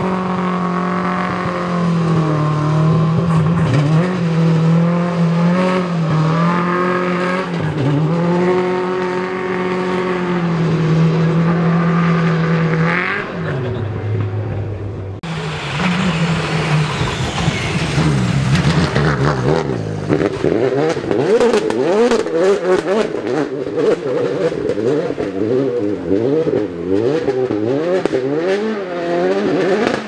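BMW E30 rally car's engine held at a steady high pitch, with small rises and dips, for the first half. About halfway, a second rally car is heard revving up as it arrives and drives through, its engine sound laced with dense, rapid crackling.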